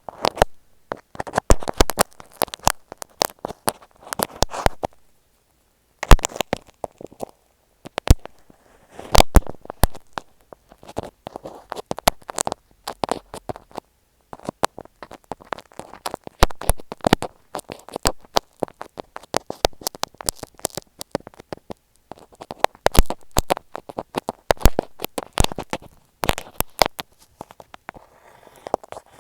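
Poking and rubbing right on tape stuck over an Apple EarPods microphone: dense, irregular crackles, clicks and scratches, with a couple of short pauses.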